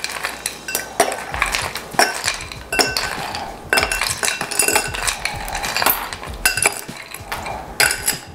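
Ice cubes clinking, picked by hand from a bowl and dropped one at a time into a glass: many sharp, irregular clinks.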